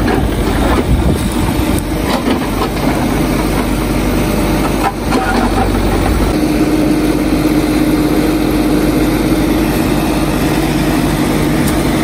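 Hidromek 102S backhoe loader's diesel engine idling steadily at close range. About six seconds in, its note shifts and a steady hum joins it.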